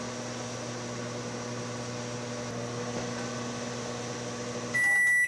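Microwave oven running with a steady hum, then its end-of-cycle beep: one long high tone near the end, signalling the heating is done.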